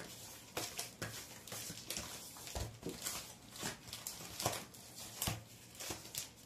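Vinyl record sleeves being flipped through and handled: irregular soft rustles, slides and light knocks of paper and cardboard, several a second.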